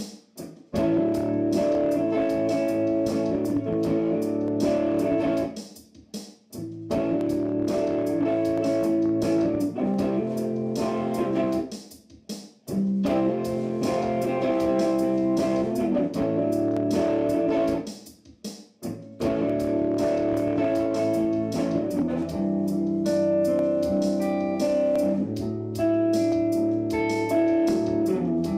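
Electric guitar played through a loop pedal: a short blues-like phrase repeats about every six seconds, with a brief gap at each restart, and more guitar notes are layered on top near the end.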